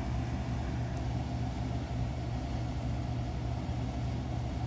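Steady low machine hum with no change in pitch or level.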